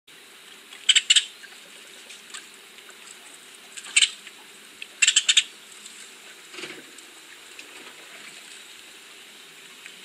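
Shallow stream water running steadily over rocks, broken by loud groups of two to four short, sharp, high-pitched clicks about a second in, at four seconds and again around five seconds.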